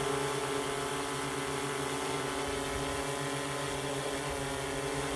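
Yuneec Typhoon Q500 4K quadcopter hovering on its stock OEM propellers: a steady hum of electric motors and blades, holding one even pitch.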